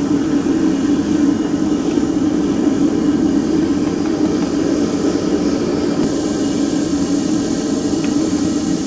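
Small furnace melting aluminum scrap, running with a steady loud rushing noise. A faint click about eight seconds in.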